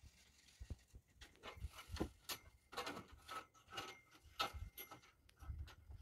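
Faint, irregular knocks and scrapes of a metal conduit pipe being turned and worked down through a column's rebar cage and wooden formwork as its oiled thread is screwed into an electric meter base.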